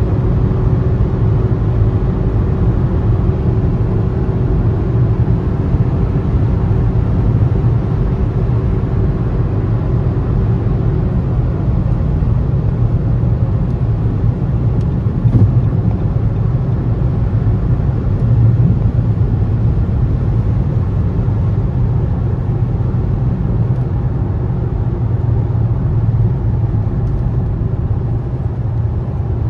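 2017 Nissan Rogue Sport's MR20DD 2.0-litre four-cylinder engine running steadily with road rumble as the car is driven, on a newly replaced VIN J relay. A faint steady hum fades out about eleven seconds in.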